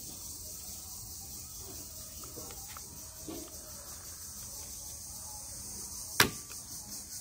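Crickets chirp steadily in the background while a plastic toy air pistol is handled. About six seconds in, the toy pistol gives a single sharp click.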